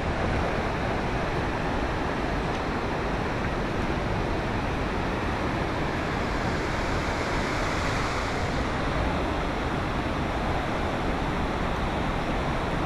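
Rushing river water: a steady, even hiss of flowing water.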